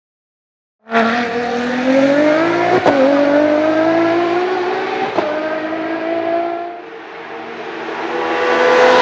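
Race car engine accelerating hard, starting abruptly about a second in. Its pitch climbs and drops sharply at each upshift, twice. It then fades as the car draws away and grows louder again near the end.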